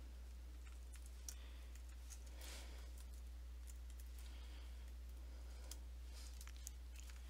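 Faint, scattered clicks of computer keyboard keys being typed, a few at a time with pauses between, over a steady low hum.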